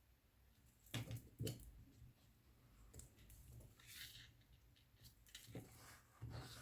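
Near silence with faint handling of paper craft pieces on a table: two light clicks about a second in and a soft rustle around four seconds, over a low steady hum.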